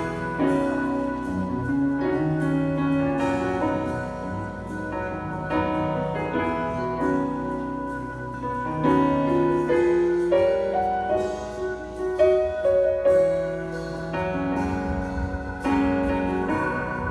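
Piano music: sustained chords and melody notes changing about every half second to a second.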